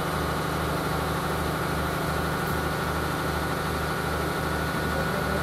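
Heavy engine running at a steady idle to power a truck-mounted hydraulic loading crane, with an even low throb that pulses about twice a second. A thin, steady high whine runs over it and grows a little louder near the end.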